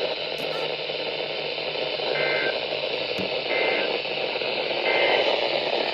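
Weather radio receiver hiss, broken by three short two-tone digital data bursts a little over a second apart, starting about two seconds in: the Emergency Alert System end-of-message (EOM) codes that close the alert.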